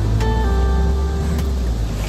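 Background music: held notes over a steady, heavy bass.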